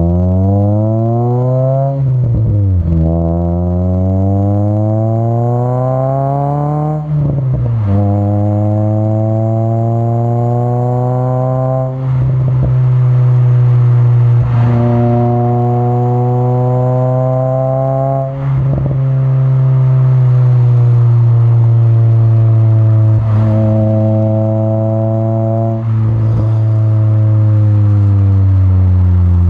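Acura RSX K20A3 four-cylinder through an HKS Hi Power muffler and a test pipe in place of the catalytic converter, heard right at the tailpipe while driving. The revs climb, drop at a shift about two seconds in, climb again to another shift a few seconds later, then settle into a fairly steady drone with short dips now and then.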